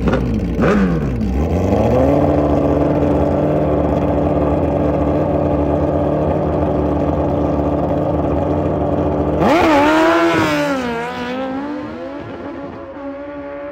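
Suzuki Hayabusa drag bike's inline-four engine: a few throttle blips, then held at steady high revs on the start line for several seconds. About nine and a half seconds in it launches, louder, the pitch rising and dropping through quick gear shifts as it pulls away and fades.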